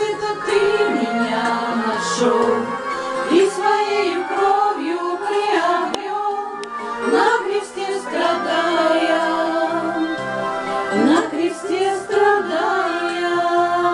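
A song with female singing over an instrumental backing, playing from a portable CD boombox.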